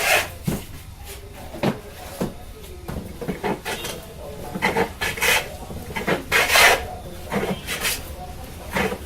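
Hand tool working wood in short, irregular scraping strokes, about a dozen, some beginning with a sharp knock.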